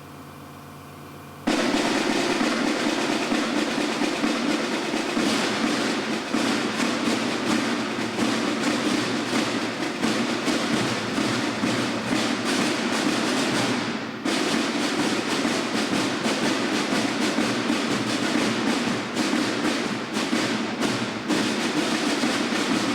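A band strikes up suddenly about a second and a half in and plays loudly, with drums and percussion beating a steady rhythm throughout.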